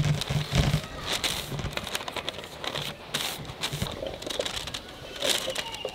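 Newspaper rustling and crinkling as it is smoothed out, then raw mango cubes tipped from a steel bowl onto the paper in an irregular scatter of soft knocks and rustles.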